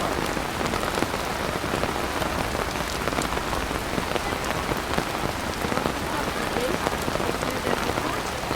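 Heavy rain pouring steadily, a dense hiss of rainfall with many individual drops ticking sharply through it.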